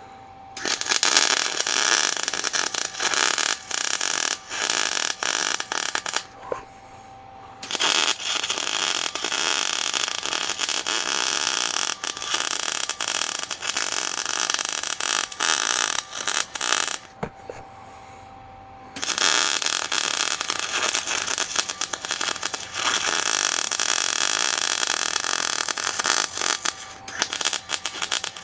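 MIG welding arc crackling steadily while beads are laid onto a worn steel vise screw to build it up, in three long runs with two brief pauses, about six and seventeen seconds in.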